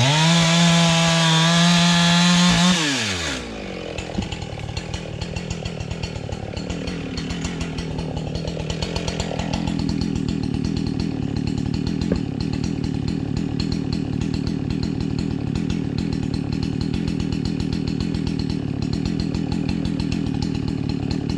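A two-stroke Husqvarna chainsaw at full throttle, cutting through a log. About three seconds in, the throttle is released and the engine winds down to a steady idle.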